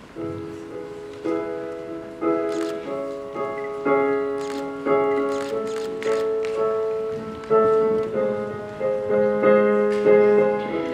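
Digital keyboard with a piano sound playing a song introduction: sustained chords struck about once a second in a slow, steady rhythm, each ringing on and fading.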